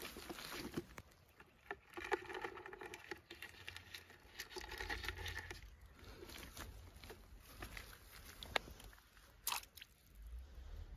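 Faint rustling and crunching of brush and plastic-bucket handling, with scattered small clicks. Near the end a short, sharper sound comes as a crab is dropped into shallow pond water.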